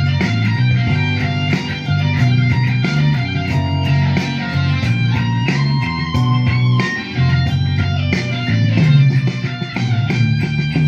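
Les Paul-style electric guitar playing a run of notes over sustained low notes.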